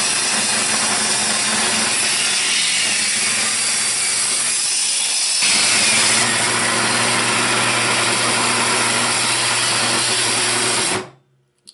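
Benchtop table saw ripping a small, hard, dried plum log lengthwise: a loud cutting noise over a steady motor hum, changing in character about five seconds in. Near the end the saw cuts out abruptly; the worn-out old saw has died.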